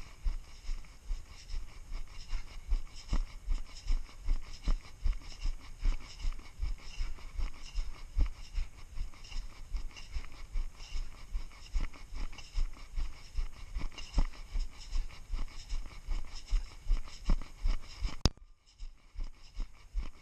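Footsteps of a person walking steadily through snow, about two steps a second, with a few sharp clicks among them. A sharp crack near the end is followed by about a second of much quieter sound.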